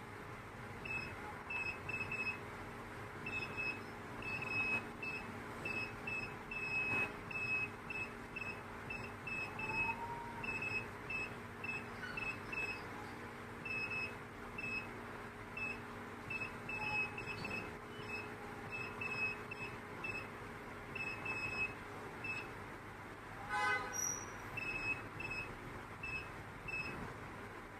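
CNC gemstone grinding and polishing machine running: a steady motor hum under frequent short, high-pitched tones at one fixed pitch, coming in irregular clusters, with one brief rising tone about 24 seconds in.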